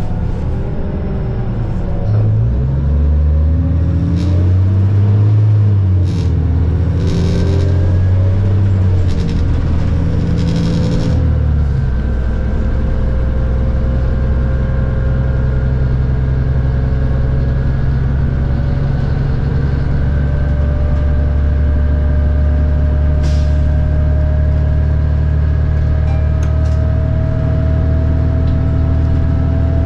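New Flyer D40LFR diesel city bus pulling away, its engine revs climbing and dropping back at gear changes. It then settles into a steady cruise with a thin whine that rises slowly as the bus gathers speed.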